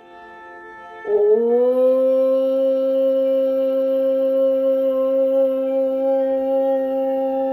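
Meditation background music: a single long held note on a flute-like wind or synth sound, entering about a second in with a slight upward slide and then holding steady.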